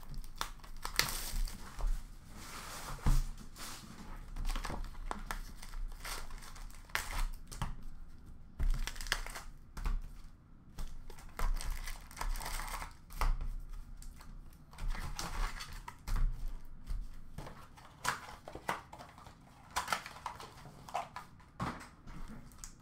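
Upper Deck hockey card packs being torn open by hand: repeated crinkling and tearing of the pack wrappers, in irregular bursts, with cards handled in between.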